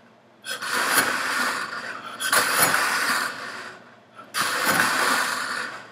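Metal slinky's coils clattering and jingling as a back-and-forth compression wave is pushed along it, in three bursts of about a second and a half each.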